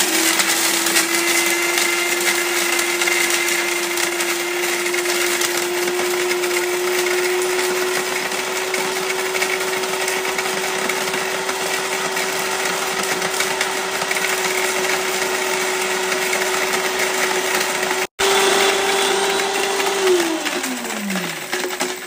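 Silver Crest SC-1589 countertop blender running at high speed with a steady motor whine and a dense grinding hiss as it pulverises glass into powder. About 20 seconds in it is switched off, and the whine falls in pitch as the motor spins down.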